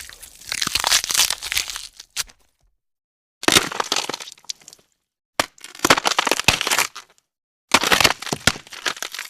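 Gore bone-crack sound effects: four separate bursts of rapid, crunching cracks and snaps, each lasting about a second and a half, with short silences between them.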